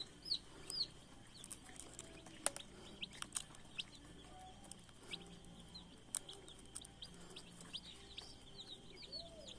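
Baby chicks peeping: scattered short, high chirps that slide down in pitch, more of them at the start and near the end.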